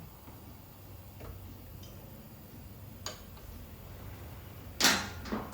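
Scattered light clicks from hand work on a motorcycle, with a louder short clatter near the end, over a low steady hum.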